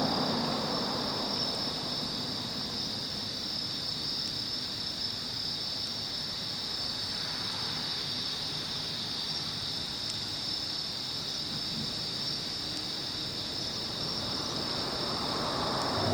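Steady high chorus of night insects singing. A train's low rumble fades during the first couple of seconds and rises again near the end.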